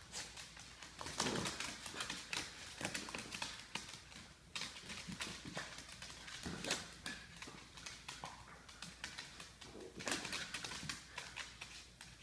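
Two dachshunds play-fighting on a hardwood floor: rapid, irregular clicking and scrabbling of their claws on the wood as they scuffle and spin around each other.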